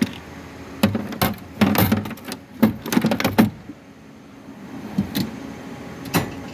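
Metal tools and steel toolbox drawers being handled: a run of clanks and rattles, then two single knocks near the end.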